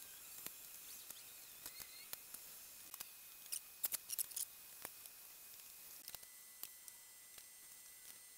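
Scattered light clicks and taps as a thin timber strip is pressed around a steel handwheel rim and spring clamps are snapped onto it. The sharpest cluster of clicks comes around the middle.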